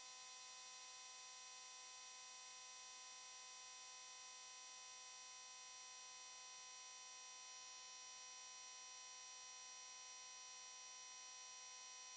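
Near silence: only a faint, steady electrical hum made of several fixed high tones.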